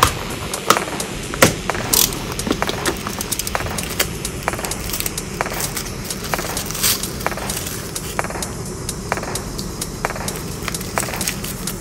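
Unboxing handling noise: irregular clicks and taps of hard plastic toy parts and wire ties, over a steady rustle of crumpled tissue paper wrapping.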